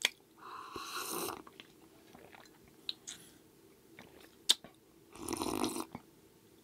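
Close-miked eating sounds: a person chewing, with sharp mouth clicks and two longer noisy bursts, one about half a second in and one about five seconds in.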